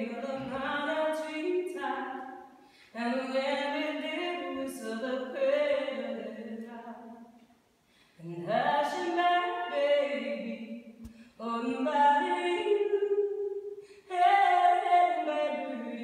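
Live singing by several voices in harmony, a woman's voice among them, sung in long phrases with short breaks between them.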